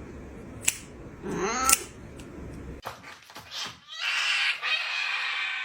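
A cat meows once, about a second and a half in, a short call rising then falling in pitch, with a few sharp clicks around it. After an abrupt cut, a steady rough hiss-like noise fills the last second and a half.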